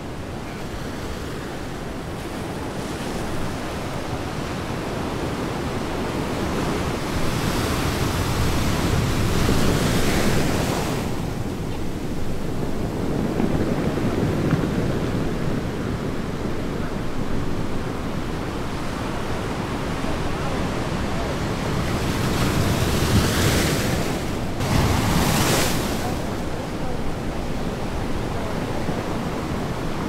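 Rough sea surf breaking against a rocky shore, with wind buffeting the microphone; the wash swells into louder surges a few times, about a quarter of the way in and again twice past the middle.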